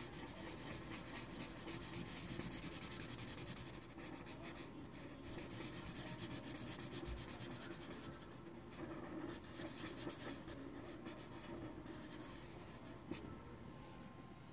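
Felt tip of a Sharpie King Size permanent marker rubbing back and forth on paper in quick repeated strokes, colouring in a solid black area. Faint throughout, with a small click near the end.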